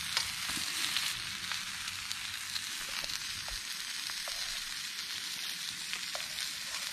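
Food sizzling on a grill plate over campfire coals: a steady hiss with occasional small pops and crackles.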